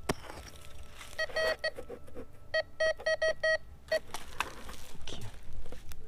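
MD-4030 metal detector beeping over a freshly dug hole, a few short beeps about a second in and then a quicker run of five or six more: the coil is picking up a metal target in the soil. Between and after the beeps, a hand scrapes through dry dirt, and a sharp click comes right at the start.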